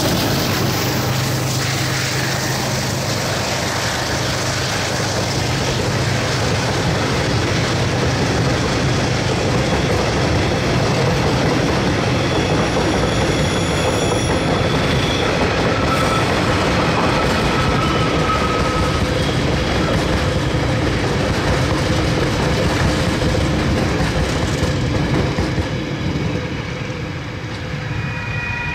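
Freight train wagons rolling past close by: a steady, loud rumble of wheels on the rails, with a few thin wheel squeals midway, growing quieter near the end.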